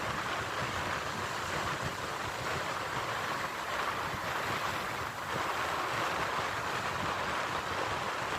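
Sea waves washing in a steady rush of surf noise.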